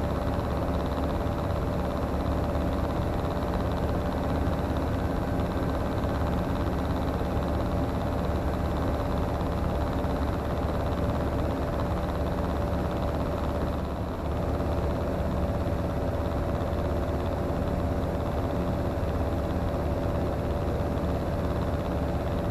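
Steady drone of the Comco Ikarus C42C microlight's engine and propeller in cruise flight, with a constant hum and a few steady tones. The sound dips slightly for a moment partway through.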